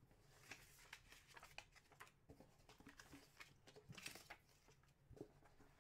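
Faint handling noises: light rustling and small scattered taps as hands open a cardboard collector's card box and lift out a paper insert and a card in a plastic holder.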